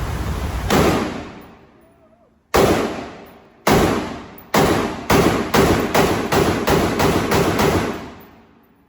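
AR-15 pistol firing about a dozen single shots: one, a pause of almost two seconds, then shots coming faster and faster, each with a ringing echo.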